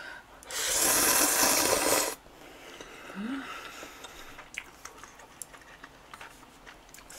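A person loudly slurps a mouthful of thick instant ramen noodles for about a second and a half, then chews quietly with small wet clicks.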